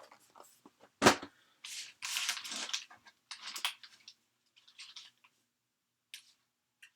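Trading-card pack wrappers crinkling and rustling in short bursts as the packs are handled and sorted, with one sharp knock about a second in, like a pack set down on the table.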